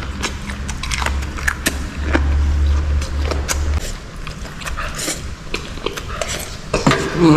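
Close-up chewing and crunching of braised beef cartilage with noodles: a run of quick, irregular crunches and clicks. A low rumble sits under it for a couple of seconds about two seconds in.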